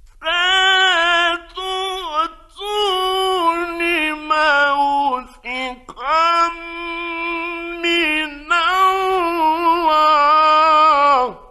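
A male reciter's voice chanting the Quran in the melodic mujawwad style, in long ornamented held notes with short breaks between phrases. The last phrase ends on a falling note near the end. A faint low hum lies under the old radio recording.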